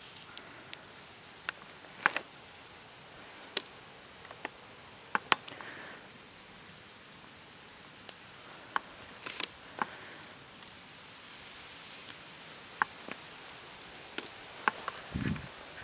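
Hand-picking sunn hemp seed pods among cut plants: scattered, irregular sharp clicks and snaps of pods and stems being broken off and handled, with light rustling of the dry vegetation.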